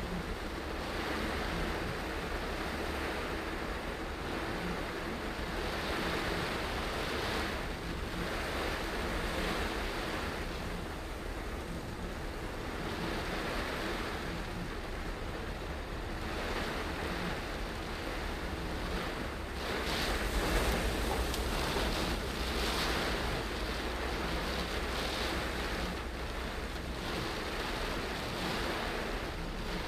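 Heavy rain falling on a moving car's windscreen and roof, with tyre hiss on the flooded road and the windscreen wipers sweeping, heard from inside the cabin. The noise swells and eases in waves, loudest about twenty seconds in.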